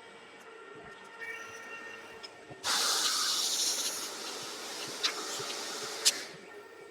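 Deckel FP2 milling machine running steadily with a humming tone while face-milling a cast iron block. About two and a half seconds in, a loud hiss starts suddenly and lasts roughly three and a half seconds, with a sharp click near its end.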